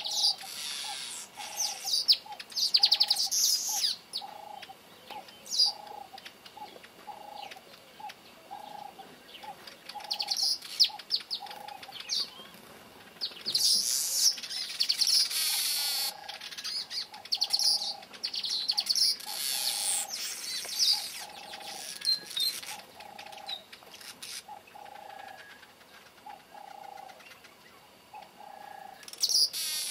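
Village weavers chattering in bouts of rapid, buzzy, high-pitched song. Under it, another bird repeats a short mid-pitched note at an even pace just over once a second, pausing for a few seconds about halfway.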